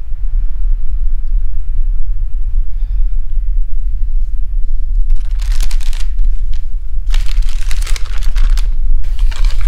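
A deep, steady low rumble, with three bursts of rustling, hissy noise over it from about halfway through.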